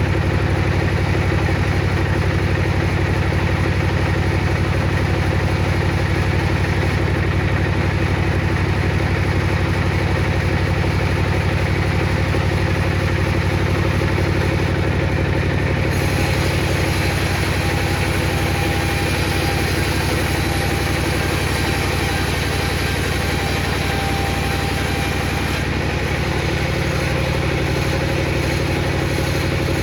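Table saw running steadily. About halfway through, a brighter hiss joins the motor for some ten seconds and then drops away, as a thick piece of teak is fed through the blade.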